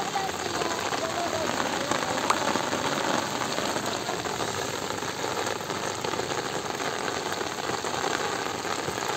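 Steady rain falling on the surface of shallow floodwater.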